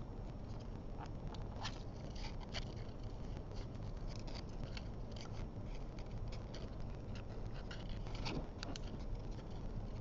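Small craft scissors snipping white cardstock in short, irregular cuts while fussy-cutting around a stamped image. The snips are faint, over a low steady hum.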